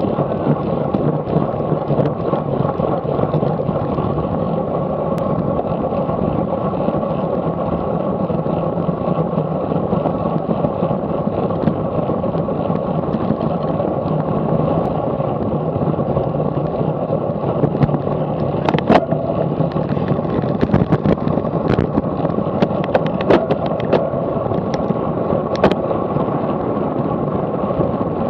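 Steady rush of wind and tyre-on-road noise picked up by a camera on a racing bicycle riding at about 23 to 25 mph. A handful of sharp clicks or knocks come in the last third.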